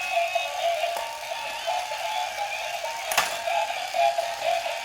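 Background music made of short high notes, with a single sharp click about three seconds in.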